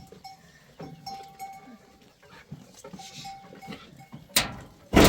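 Livestock bleating, with two loud calls near the end, and small herd bells ringing faintly.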